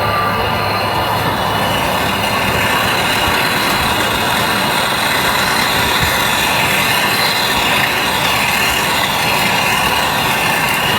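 Heat gun blowing steadily, a loud, even hiss with a constant fan whine, heating the XRM125 engine case so the bearing or part can be slipped in without hammering.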